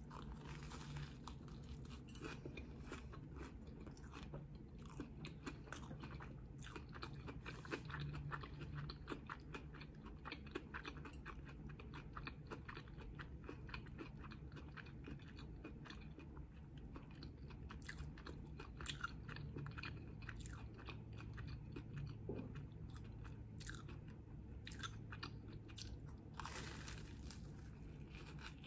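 Close-up crunching and chewing of a sugar-topped, panko-crusted fried Korean corn dog: a dense, irregular run of crisp crackles as the crust is bitten and chewed.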